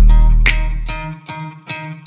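Instrumental background music: plucked string notes over a deep bass note that fades during the first second, with a sharp percussive hit about half a second in.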